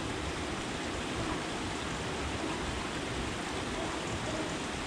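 Steady rushing noise, even throughout, with no distinct events or pitched hum.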